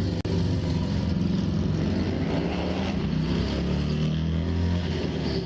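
Motor vehicle engine running steadily with a low hum, heard close to the microphone.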